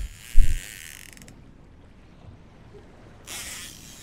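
Fishing reel clicking and whirring under load from a hooked fish, stopping about a second in, with a shorter burst near the end. A low thump about half a second in.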